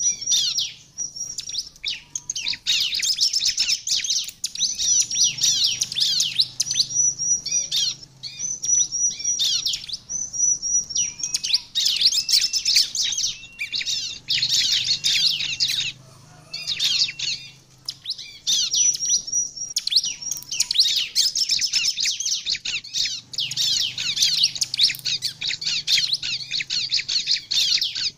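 Bar-winged prinia (ciblek) in full, vigorous song: dense runs of high, rapid chirps and trills, broken by a few short pauses.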